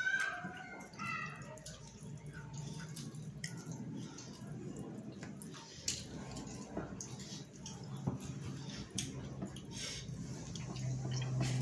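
Eating rice by hand: fingers squishing and mixing rice on a steel plate, with chewing and lip smacks making a run of small wet clicks. A few short high squeaks come right at the start, and a low steady hum comes in near the end.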